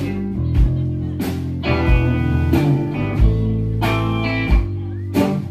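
Live rock band playing with no vocals: electric guitars and bass guitar over a drum kit, the drums keeping a steady beat with a cymbal crash about every second and a half.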